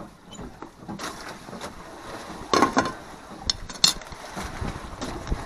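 A glass lid set onto an aluminium cooking pot, giving a few sharp clinks and knocks about two and a half to four seconds in, over a steady background noise.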